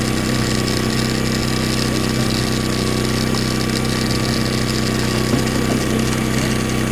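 Small motor on a toy tractor running steadily, driving a homemade miniature paddy-threshing machine through rubber belts: an even mechanical hum with a higher hiss.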